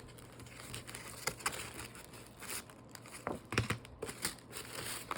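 Packaging being handled, with an irregular crinkling rustle and a few small clicks as it is unwrapped.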